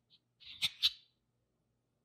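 Small scissors snipping the net of a squishy mesh stress ball: a short scrape, then two crisp snips about a fifth of a second apart.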